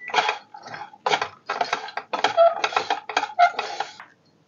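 Wooden spatula scraping and knocking around a non-stick kadhai off the heat, stirring a dry mix of coriander powder, dry fruits and roasted fox nuts (makhana): a quick, irregular run of about a dozen scrapes and taps.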